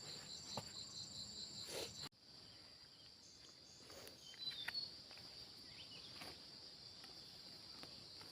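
Insects, most likely crickets, chirping in a steady high-pitched trill. It breaks off abruptly about two seconds in and resumes, with a few faint knocks or rustles partway through.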